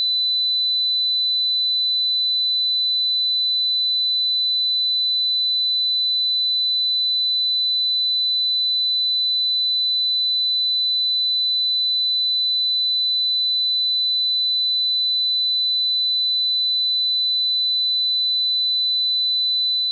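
Steady high-pitched 4 kHz pure sine test tone at a constant level, the kind used for hearing tests and for checking the treble response of speakers and headphones.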